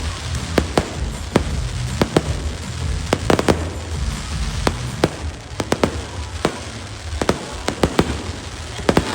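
Aerial fireworks display: a rapid, irregular series of sharp bangs and pops, several a second, over a steady low rumble.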